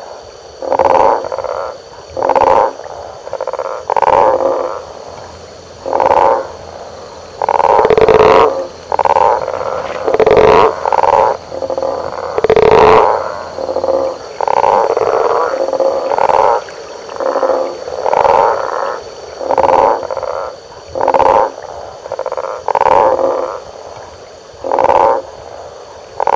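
Frogs calling: short, low croaking calls repeated about once a second, some overlapping, over a steady high-pitched drone.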